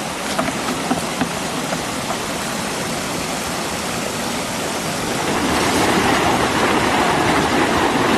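Floodwater rushing and splashing as it flows down a drainage ditch and spills over a concrete edge; the rush grows louder about five seconds in.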